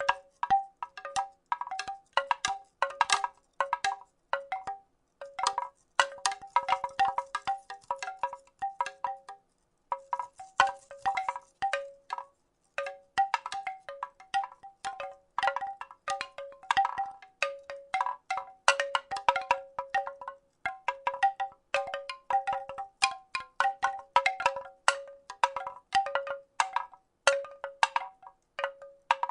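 Wooden rattle shaken in an irregular, continuous clatter. Each clack rings briefly with the same couple of hollow, chime-like tones. The clatter stops for a moment about nine and a half seconds in.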